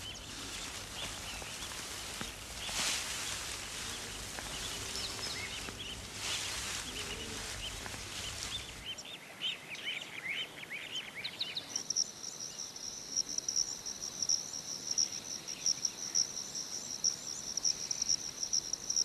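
Bush ambience at dusk: birds chirping over a soft noisy background, then about two-thirds of the way through a steady, high-pitched insect trill sets in and carries on.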